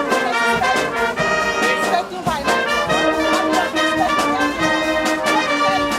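Brass orchestra playing a piece, with trumpets and trombones holding sustained notes over a steady percussion beat.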